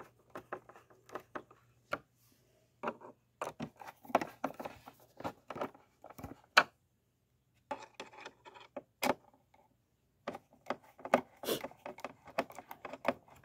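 Screws being tightened into the plastic bottom cover of a Hoover Elite Rewind Plus upright vacuum: irregular clicks, scrapes and rattles of the screwdriver and of the plastic housing being handled, with a few short pauses.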